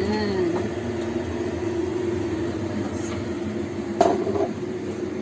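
Metal steaming pan of egg custard set down with one sharp clink and a short ring about four seconds in, over a steady kitchen hum.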